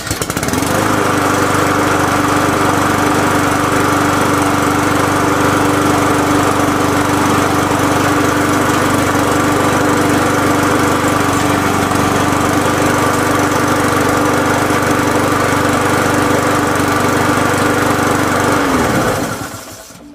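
Walk-behind lawn mower's single-cylinder engine catching on the first pull and running steadily at full speed, then shut off near the end and winding down to a stop.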